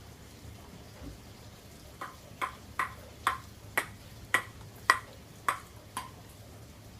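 A run of about nine light, sharp ticks with a short ring, roughly two a second, starting about two seconds in and stopping about six seconds in.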